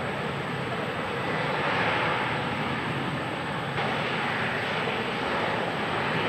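Boeing 737-800's CFM56 turbofan engines running at takeoff power, a steady jet roar that swells slightly about two seconds in.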